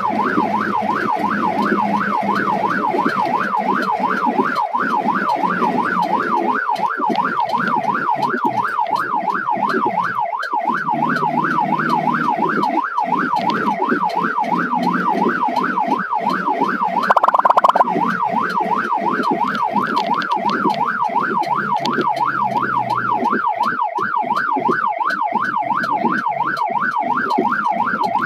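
Ambulance electronic siren in yelp mode, a fast wail sweeping up and down about three times a second, heard from inside the cab over the engine. About seventeen seconds in, a brief louder blast lasts about half a second.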